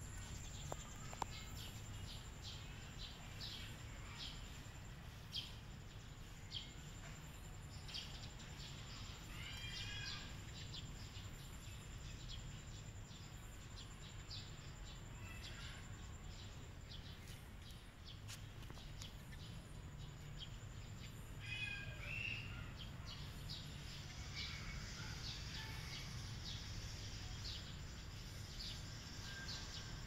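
Outdoor ambience with small birds chirping now and then, in short bursts about ten seconds in and again a little after twenty seconds, over a low steady rumble and a thin steady high-pitched whine.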